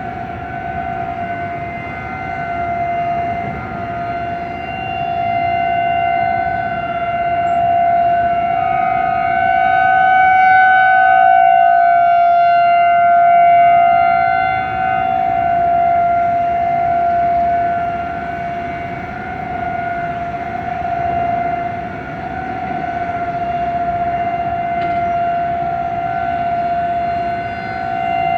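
Several outdoor civil-defense warning sirens sounding a steady tone together during a weekly siren test. The sound swells and fades every few seconds.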